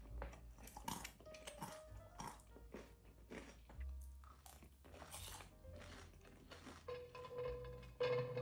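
Repeated crisp crunches of crispy fried tofu and candied walnuts being bitten and chewed, about one a second, over soft background music. Near the end, walnut halves clatter onto a plate.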